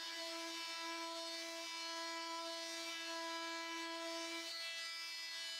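Bosch GOP 250 CE oscillating multi-tool with a delta sanding plate running at full speed and sanding painted wood: a steady high-pitched buzz with the hiss of the abrasive rubbing the wood.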